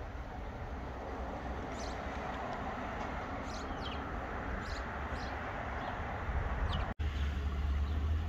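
Outdoor ambience: steady background noise with several short, high bird chirps. A cut about seven seconds in brings a deeper, louder low hum.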